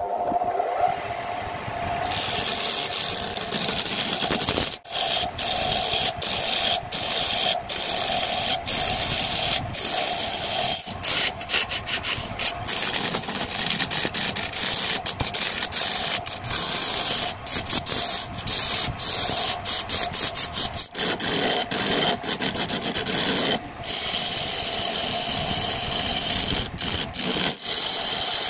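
Wood lathe spinning a rough wooden blank, its motor humming, then from about two seconds in a hand-held turning tool cutting into the spinning wood with a continuous harsh scraping as shavings fly off. The cut breaks off briefly a few times where the tool lifts from the wood.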